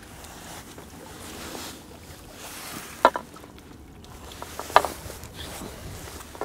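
Small waves lapping and wind at the water's edge, with two short sharp sounds, about three and about five seconds in.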